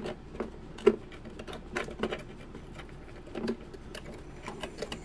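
Small irregular taps, clicks and scrapes of a bent metal pick tool and fingers working against a plastic motor mount and the ABS boat hull while packing epoxy under the mount. The two sharpest clicks come at the very start and about a second in.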